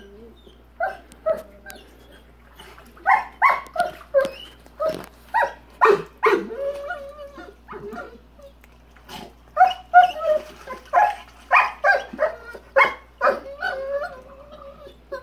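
Rottweiler barking at the water of its kiddie pool, muzzle down at the surface: repeated short barks in quick runs, broken by brief pauses.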